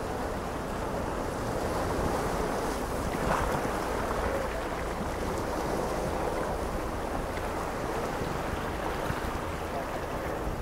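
Small ocean waves washing over a rocky shoreline in a steady wash, with one louder surge about three seconds in. Wind buffets the microphone with a low rumble.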